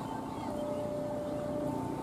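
An electronic two-tone warning signal alternating between a lower and a higher pitch, each held about a second, over the low rumble of an approaching diesel locomotive.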